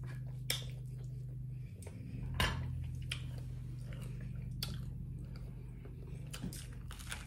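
Crisp crackling bites and chewing of a breaded fried pork chop, with a few light fork clicks, the sharpest crunch about two and a half seconds in. Under it a lawnmower engine drones steadily.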